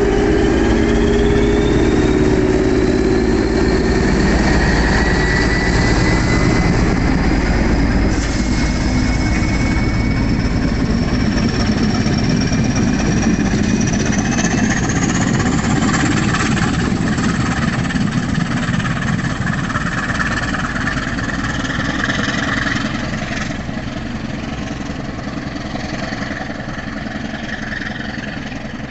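CP 1400-class English Electric diesel locomotive pulling away under power: a deep engine throb with a high whine rising steadily in pitch over the first fifteen seconds or so. The sound then gradually fades as the train draws away.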